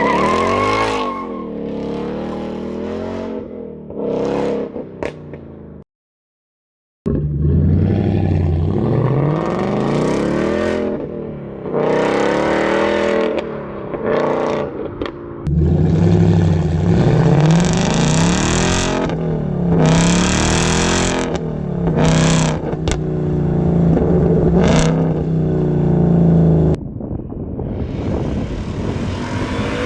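Supercharged Ford Mustang GT 5.0 V8 running through a MagnaFlow X-Mod catback exhaust, revving and accelerating in repeated pulls, its pitch rising and falling. The sound cuts out briefly about six seconds in.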